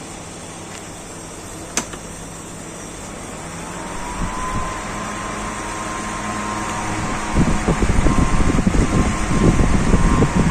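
Electric fan switched on with a click, its motor whine rising in pitch as it spins up and then holding steady. A few seconds later the blade wash starts buffeting the microphone in gusts.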